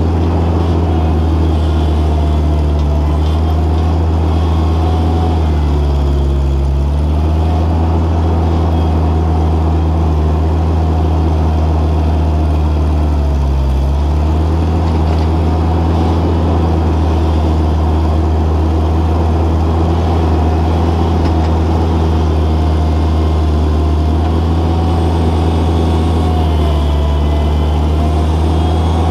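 Mobility Dipper 4x4 loader's engine running loud and steady under way, its pitch dipping briefly about six seconds in, again about fourteen seconds in, and once more near the end.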